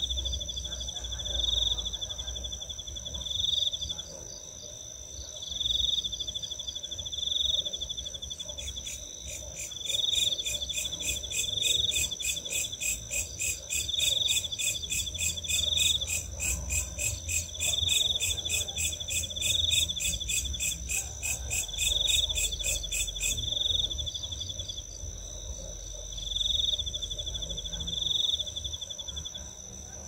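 Night insects calling together: crickets and belalang kerek (katydids). One keeps up a steady high trill, another gives a short chirp every second or two, and from about nine seconds in until past two-thirds through a loud, rapid ticking rattle joins them.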